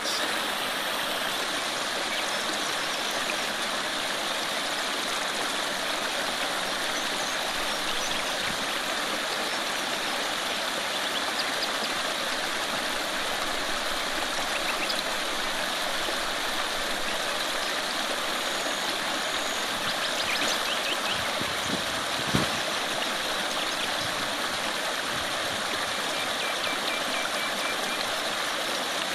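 Shallow creek running fast over a rocky bed: a steady rush and babble of flowing water, with one brief thump about two-thirds of the way through.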